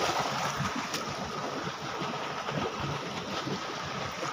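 Steady rushing of water flowing down a concrete irrigation channel below a sluice gate.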